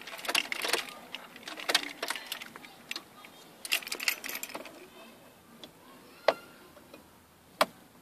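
Car keys jangling on their ring and the ignition key clicking as it is turned, with a run of short rattles and clicks over the first few seconds and two sharp clicks later. No starter cranking or engine follows: the kill switch keeps the car from starting.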